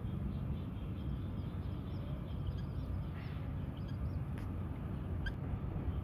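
Cats and kittens crunching dry kibble: faint irregular crackles and ticks, with two sharper clicks near the end, over a steady low background rumble.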